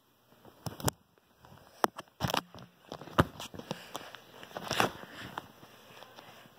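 Handling noise: rustling with several sharp knocks as a plush toy and the handheld camera are jostled and tossed about on soft fabric.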